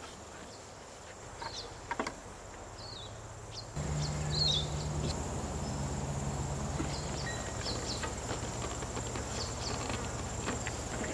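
Outdoor insect chirping with a steady high trill and scattered short chirps, and a couple of light clicks in the first two seconds. About four seconds in, a steady low hum joins and runs on under the insects.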